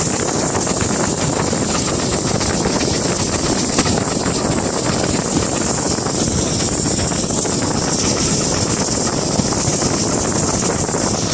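Steady running noise on the footplate of steam locomotive 6619 on the move, with wind buffeting the microphone.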